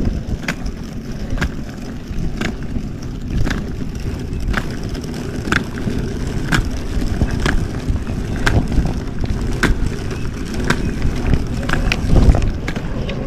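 Footsteps at a steady walking pace, about two a second, over a continuous low rumble.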